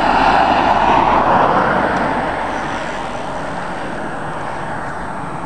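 A car passing close by on a country road, its tyre and road noise swelling to a peak about a second in and then slowly fading away.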